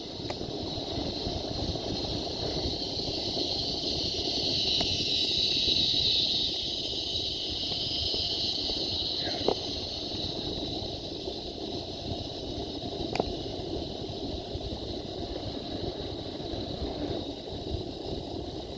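Steady rumble of wind and rolling noise from riding a bicycle slowly along a trail, with a high steady hiss that swells a few seconds in and then eases off. A few faint clicks.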